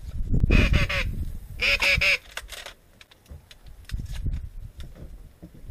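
Two quick runs of rapid, nasal duck quacks, the first starting right away and the second about a second later, then a low rumble.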